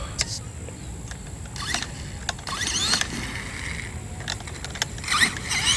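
RC truck with a Hobbywing 2200 kV sensored brushless motor driving its stock transmission. The motor and gears whine up in pitch in two short bursts of throttle, about two and a half seconds in and again near the end, with scattered clicks and knocks from the drivetrain and chassis.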